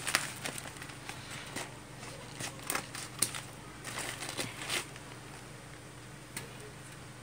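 Newspaper and packing-tape wrapping crackling and crinkling in short irregular crackles as hands grip and work at a wrapped package; it quiets down after about five seconds.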